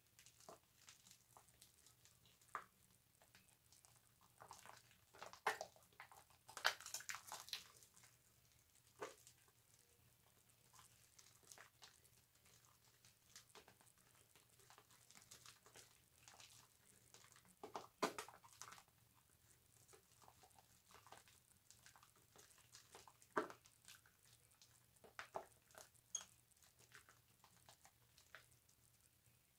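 Faint wet squishing and crackling of bar soap being worked into a lather, in scattered short bursts. A longer stretch of rubbing comes about six to seven seconds in, and single louder squelches come near eighteen and twenty-three seconds.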